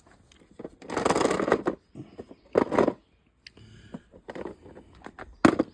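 Irregular rustling and scraping of parts being handled, with a sharp click near the end.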